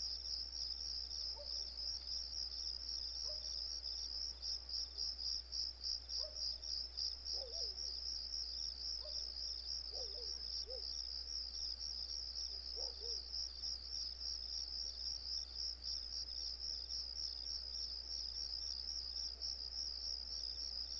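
Crickets chirping in a steady, rapidly pulsing trill, with a few faint short chirps underneath.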